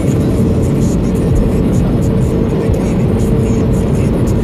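Steady tyre and engine noise inside a car's cabin at motorway speed, with a constant hum and music playing along with it.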